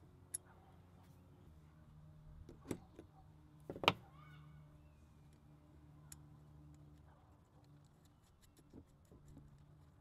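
Faint small metallic clicks and ticks of a brass jet being handled and threaded by hand into a scooter carburetor body, with two louder knocks a little under three seconds in and about four seconds in, over a low steady hum.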